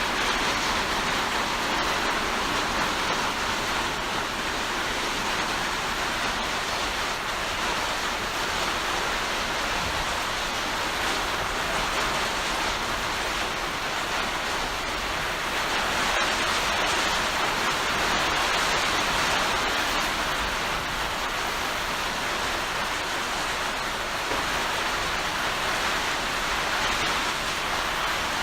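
Heavy rain pouring steadily in a dense, even hiss, swelling slightly a little past the middle.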